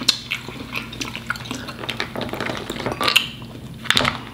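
Irregular clicks and scrapes of a wooden spoon against a glass bowl of seafood-boil butter sauce as the sauce is spooned over corn on the cob, along with hands picking at seafood.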